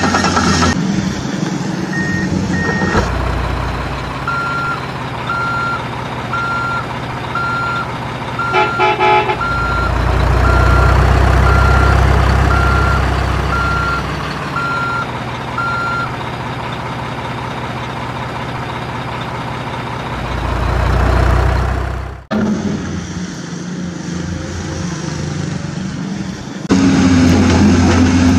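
Heavy truck engine running, with a reversing alarm beeping a little faster than once a second and a short horn toot about nine seconds in. The engine swells louder twice, and the sound cuts off sharply and restarts about 22 seconds in.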